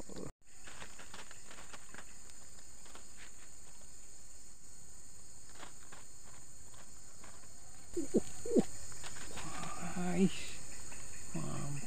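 Steady, high-pitched chorus of insects, with a short break just after the start.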